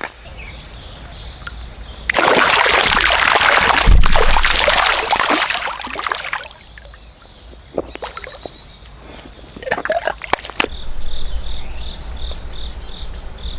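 Creek water splashing for a few seconds as a largemouth bass is put back in, loudest around the middle, followed by a few light knocks. Crickets chirr steadily and high-pitched throughout, with a slow pulsing chirp joining near the end.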